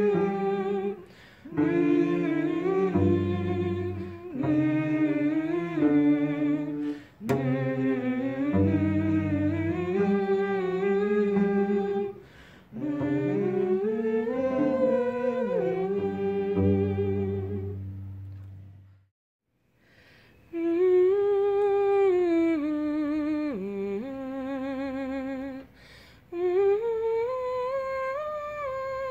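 Wordless humming of a slow melody with vibrato, over low sustained accompaniment notes at first. It stops for about a second two-thirds of the way in, then a lone hummed line carries on.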